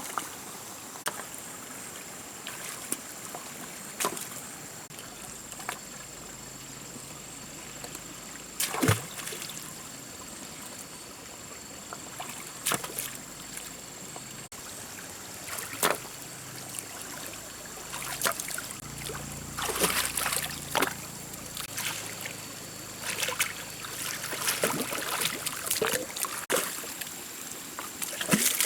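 Water trickling and splashing, with irregular sharp knocks and clatter, more frequent in the last third, over a steady high-pitched tone.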